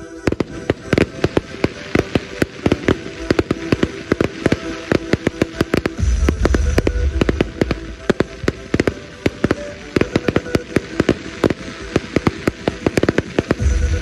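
Fireworks display: rapid, continuous bangs and crackling from bursting shells, with heavier, deeper blasts for a couple of seconds about six seconds in. Music plays faintly underneath.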